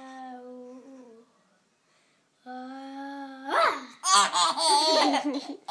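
A baby laughing hard in quick repeated bursts from about four seconds in. Before that, a voice holds a steady note twice, the second one sweeping sharply upward just before the laughter.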